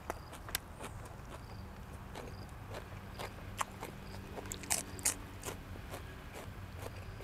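A person eating close to the microphone: chewing and biting through a meal of blood cockles, shrimp and raw vegetables, with scattered sharp clicks and scrapes. The two loudest clicks come about five seconds in.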